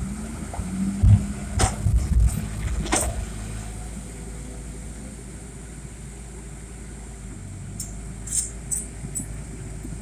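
Volvo tracked excavator's diesel engine working under hydraulic load as a bucketload of wet soil is dumped into a steel tipper truck bed, with heavy thuds and clunks over the first few seconds. It then settles to a steady engine hum, with a few sharp metallic clinks near the end.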